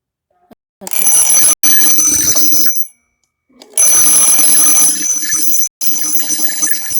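Twin-bell alarm clock ringing loudly, its hammer rattling between the two metal bells. It rings in two bursts: one of about two seconds, then after a short pause a longer one that fades off toward the end.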